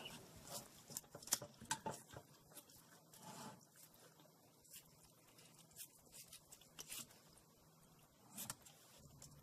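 Faint, scattered snips and clicks of kitchen shears cutting through raw chicken skin and joints, over near silence.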